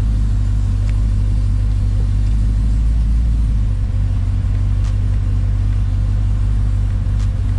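Supercharged 5.4-litre V8 of a Ford SVT F150 Lightning idling steadily at operating temperature, heard from inside the cab.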